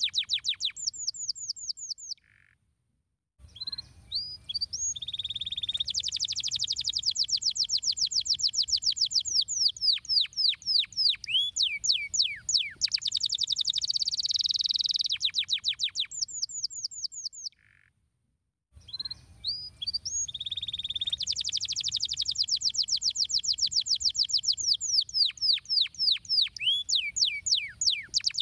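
Domestic canary singing long songs of fast trills and down-slurred whistling notes. The song breaks off twice for about a second, and the same song passage repeats after the second break.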